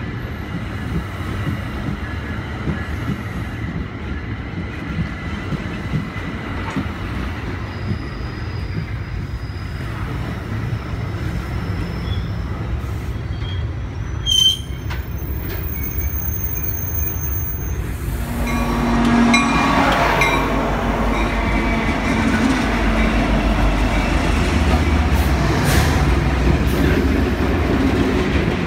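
Passing trains at a station platform: bilevel commuter coaches roll by with a steady rumble of wheels on rail. About two-thirds of the way in it grows louder as a diesel freight locomotive rolls past.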